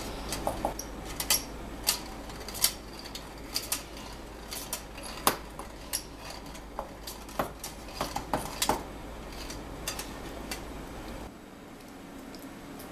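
Hand-crank metal flour sifter being turned in fits and starts: irregular sharp metallic clicks and rattles, a few a second, that stop about eleven seconds in.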